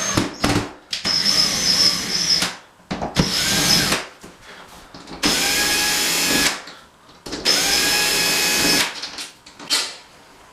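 Cordless drill driving the screws of hollow-wall anchors set in plasterboard, in about four short runs of one to two seconds each with pauses between. The screws are being snugged up until the anchors grip and then backed off again.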